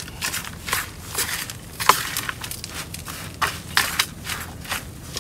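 A metal fork stirring and scraping dry flour and mashed sweet potato in a stainless steel tray: a run of irregular scratchy strokes with sharp clicks where the fork meets the metal.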